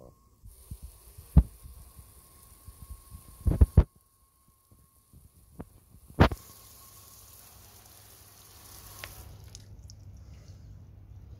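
A few short, dull thumps, the loudest about six seconds in, followed by a faint steady low hum with a light hiss.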